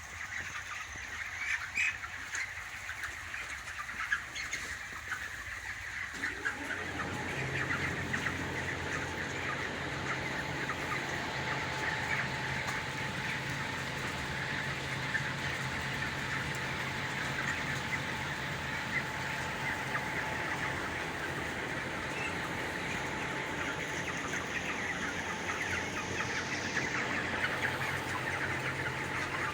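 A shed full of broiler chicks and chickens calling all at once, a dense stream of peeping and clucking. About six seconds in, a steady low machine hum starts up and runs under the flock.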